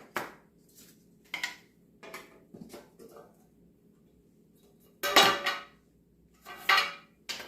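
Clinks and scrapes of a metal can of wood stain being handled and stirred, in short separate strokes, the two loudest about five and six and a half seconds in.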